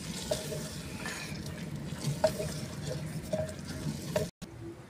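Wooden spoon stirring thick moong daal in a clay pot, the daal sizzling over the fire, with a few light knocks of the spoon against the pot. The sound stops abruptly near the end.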